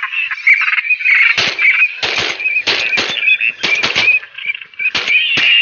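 A rapid string of about ten shotgun shots fired at a flock of teal, coming in clusters from about a second in, over a steady run of short high bird chirps.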